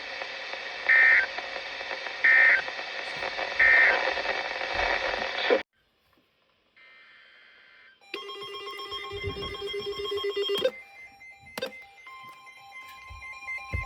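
NOAA weather radio broadcast hiss carrying three short warbling data bursts, the EAS end-of-message code closing the alert. The signal then cuts off. A ringing electronic alert tone follows, and a steady alert tone starts near the end.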